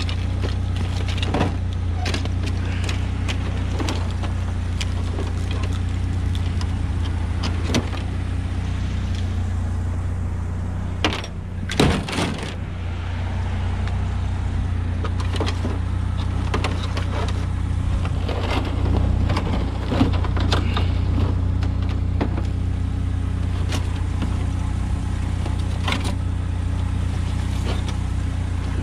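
Scrap being rummaged by hand in a plastic trash can: wooden slats, cords and wire clattering and rustling in many short knocks, with a couple of louder knocks about eleven seconds in. Under it runs a steady low engine hum, as of a vehicle idling.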